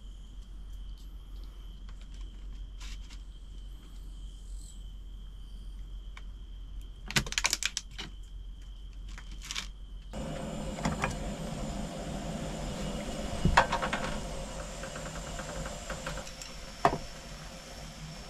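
A steady high insect trill behind a burst of sharp clicks about seven seconds in, as a boiled egg is cut with a folding knife on a thin plastic tray. About ten seconds in the sound changes to a cassette gas stove burning under a pot of boiling noodles, with a hiss and bubbling, and two sharp knocks of chopsticks against the pot.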